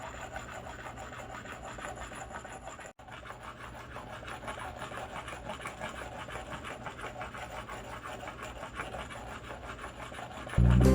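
A whetstone grinding against the steel face of a jeweller's hammer or anvil in rapid back-and-forth strokes, a steady scraping rasp. Music starts near the end.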